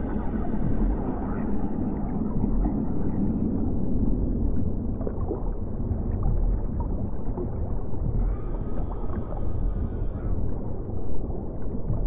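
Water rumbling and gurgling, a deep, steady wash of sound. About eight seconds in, a brighter hiss rises over it for about two seconds.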